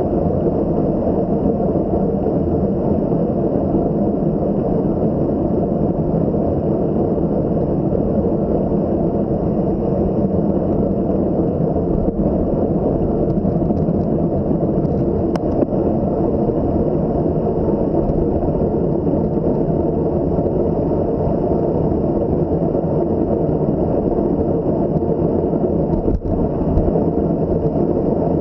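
Steady low rumble of wind buffeting the microphone and tyre noise while riding a mountain bike at speed.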